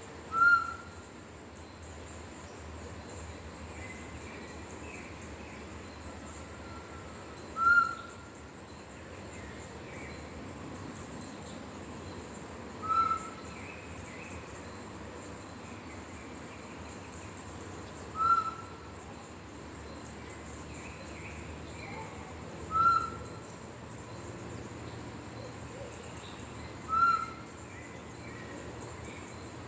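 Straight-type macuco (solitary tinamou) bird-call whistle, blown to give a short whistled note about every four to six seconds, six times in all; it imitates the tinamou's call the way a 'pé de cabra' call does. A steady buzz of crickets or insects runs underneath.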